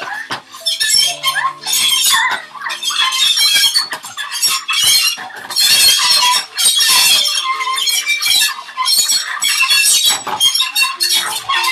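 Dry ice pressed against metal, squealing and shrieking in irregular high-pitched runs, over held piano notes.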